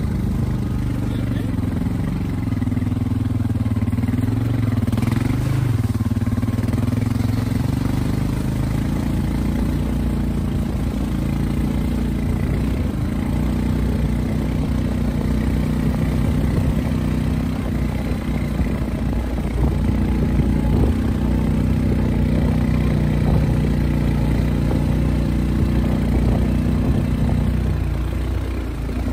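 ATV (quad) engine running steadily as it is ridden, its pitch dipping and rising briefly about five seconds in.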